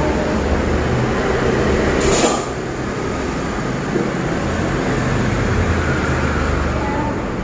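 Street traffic outside an open shopfront: vehicle engines humming as they pass, swelling and fading, with a short loud hiss about two seconds in.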